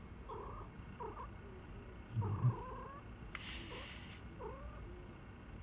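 Scottish Fold cat grooming itself, with short squeaky sounds that rise and fall, about one a second. A low thump comes a little over two seconds in, and a short hiss follows just past the middle.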